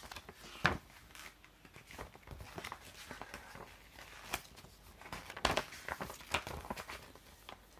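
Faint handling noise: light rustling with a few sharp ticks, about a second in and again around five to six seconds in.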